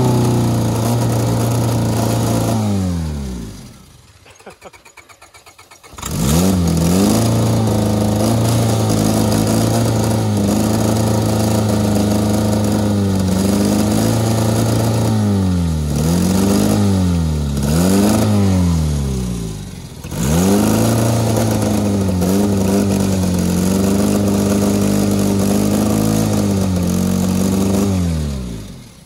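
Honda Civic four-cylinder engine running on ether sprayed into its intake, throttle strapped wide open and tire foam in the crankcase in place of oil. It runs at a steady high rev, dies away about three seconds in and catches again around six seconds, surges and sags twice, nearly stalls around twenty seconds, picks back up, and winds down near the end as the ether runs out.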